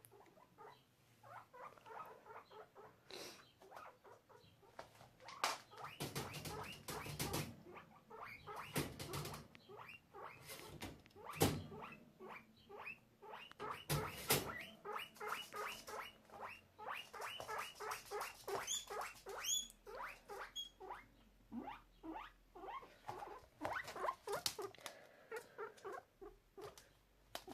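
A guinea pig squeaking over and over in quick runs of short calls, with a few rising whistles near the middle, as it calls for its absent cage-mate. A few sharp knocks sound among the calls.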